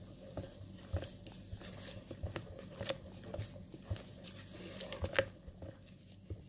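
Spatula stirring a runny batter of eggs, sugar and butter by hand in a stainless steel bowl: soft wet stirring with irregular clicks and taps of the spatula against the metal, and one sharper knock about five seconds in.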